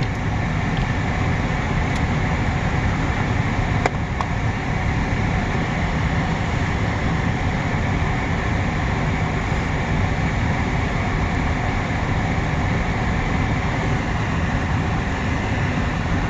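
Freight cars of a long mixed freight train rolling past, a steady, unbroken rumble of wheels on rail.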